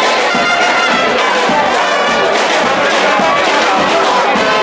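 A charanga brass band playing loudly and steadily: trumpets and trombones carrying the tune over a regular percussion beat.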